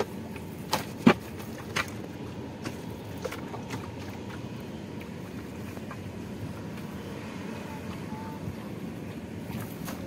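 Cast net and catch being handled in a wooden boat: a few sharp knocks in the first two seconds, the loudest about a second in, over a steady low rumble.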